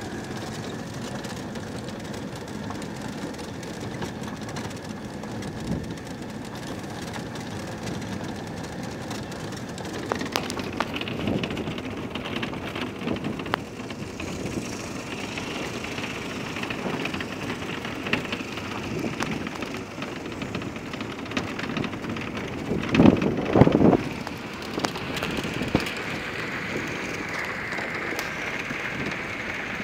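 Citroën 2CV's air-cooled flat-twin engine running while the car rolls slowly, tyres crunching over a gravel and dirt field. It is a steady rumble and rattle, with a few louder bumps and knocks, the loudest about two thirds of the way through.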